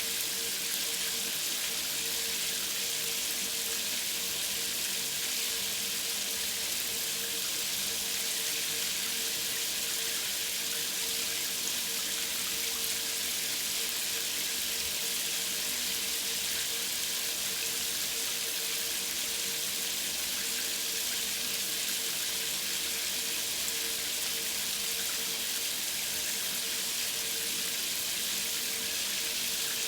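Shower running at high water pressure into an empty tub: a steady, even hiss of spray on the tub, with a faint hum underneath.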